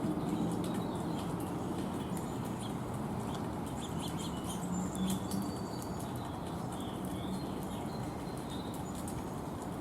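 Small birds chirping in short, high calls, with scattered light clicks, over a steady low background rumble.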